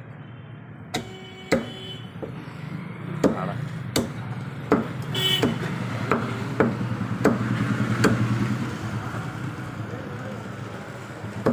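A butcher's cleaver chopping chicken pieces on a wooden chopping block. About ten sharp chops come at an uneven pace, mostly in the first two-thirds, over a steady low rumble of road traffic.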